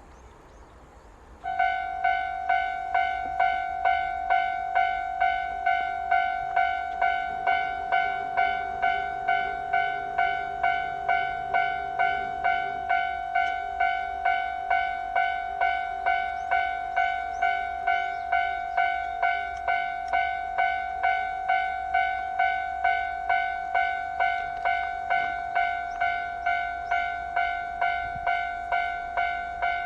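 Japanese railway level-crossing alarm sounding, a two-tone electronic ding repeating about twice a second. It starts suddenly about a second and a half in, warning that a train is approaching.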